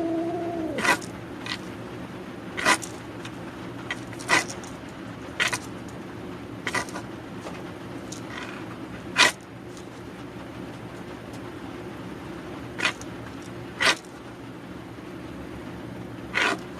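A feral cat's low, wavering growl fades out about a second in. About a dozen short, sharp scratchy sounds follow at irregular intervals over a steady low hum.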